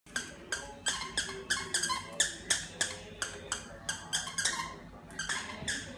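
Squeaky plush dog toy squeezed in a chihuahua's mouth, giving short high squeaks in quick succession, about three or four a second.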